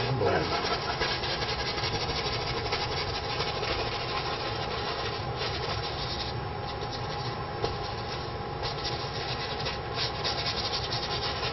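Bristle brush scrubbing oil paint onto a canvas, a steady scratchy rubbing that swells and eases with the strokes.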